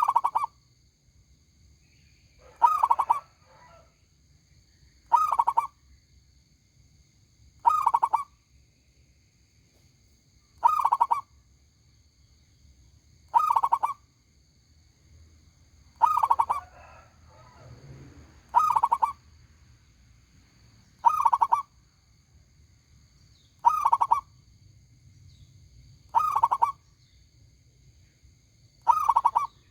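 A zebra dove (perkutut) cooing its song, a short loud phrase repeated twelve times at an even pace of about one every two and a half seconds.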